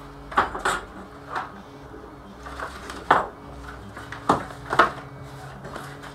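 Tools and sheets of card being picked up and put down on a wooden workbench: a series of about seven sharp knocks and taps, irregularly spaced, over a steady low hum.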